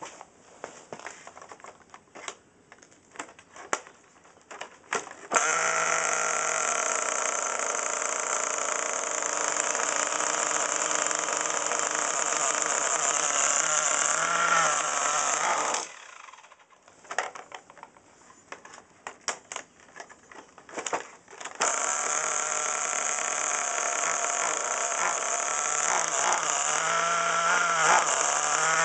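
HPI Firestorm RC truck's small nitro engine starting from cold: after a few seconds of clicks it catches about five seconds in and runs steadily, stops near sixteen seconds, then after more clicking catches again about twenty-one seconds in and runs on, its pitch wavering and rising near the end.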